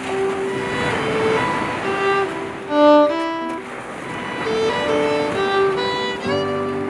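Background music led by a fiddle, playing a melody of held notes.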